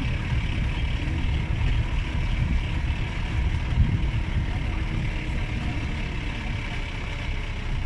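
Wind buffeting the phone's microphone, an irregular low rumble across an open grassy plain.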